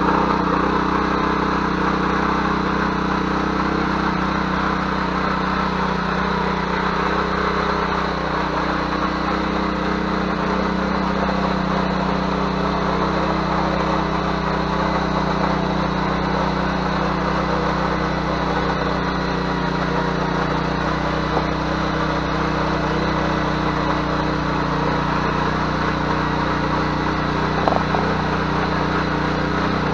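Ruris 731K motor hoe (rotary tiller) engine running steadily under load as its tines work the soil.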